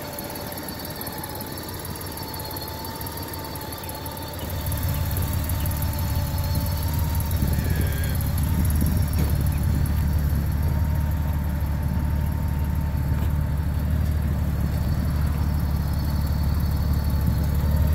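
A motor vehicle engine idling: a steady low rumble that comes in about four seconds in and holds, over a faint thin whine.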